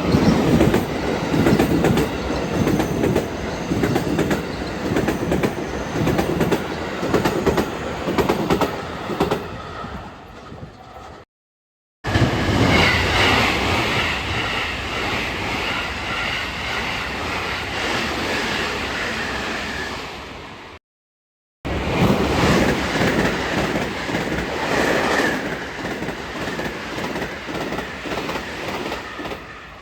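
JR trains running past on the line near a station, with rhythmic wheel clatter over the rail joints, in three passes split by two short silent breaks. In the middle pass a high-pitched whine rides over the rolling noise and slowly fades away.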